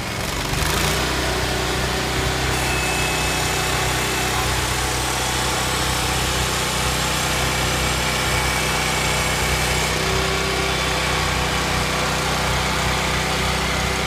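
The Kohler 27 hp V-twin petrol engine of a Vermeer SC252 stump grinder, running steadily. It gets louder about half a second in, then holds an even pitch.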